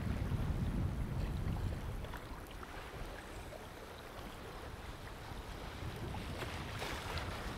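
Wind buffeting the microphone over small sea waves washing and splashing against shoreline rocks. The wind gusts hardest in the first couple of seconds, and a wave splashes near the end.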